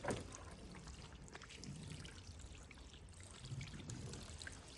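Water from a hose's gentle, open stream pouring over a car's coated paint and trickling off the panels: a sheeting rinse that carries most of the water off the hydrophobic coating before drying.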